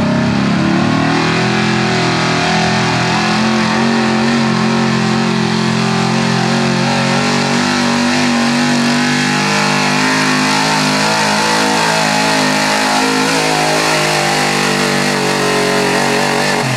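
Modified Ford F-250 pickup's engine running at high, steady revs under full load while it drags a weight-transfer sled. The revs climb in the first second, hold, and drop away at the very end as the pull finishes.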